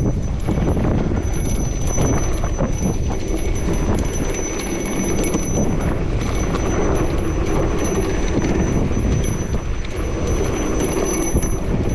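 Luna X2 electric mountain bike rolling over a dry dirt trail: steady tyre noise with a continuous clatter of small rattles and knocks from the bike.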